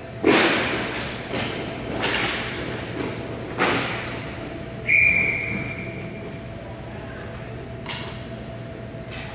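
Hockey play echoing in a large rink: several loud thuds against the boards in the first four seconds, then a single referee's whistle blast about five seconds in that fades out.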